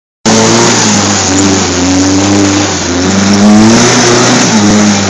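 Jeep's six-cylinder engine running with a deep, thick note, revving up and down so its pitch rises and falls several times.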